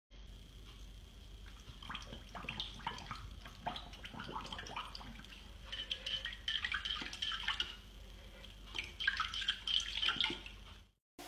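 A puppy pawing at the water in its ceramic water bowl, splashing at a toy in it: irregular light splashes and drips in clusters, with small clicks against the bowl.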